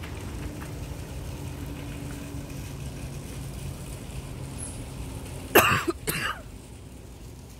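A person coughing twice, two short coughs about half a second apart, over a steady low hum.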